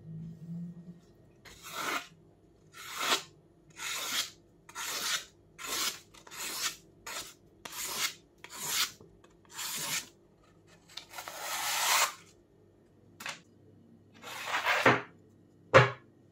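Freshly sharpened kitchen knife slicing through magazine paper: a run of short cutting strokes about one a second, then a few longer cuts, the sign of a very sharp edge. A sharp knock, the loudest sound, comes near the end.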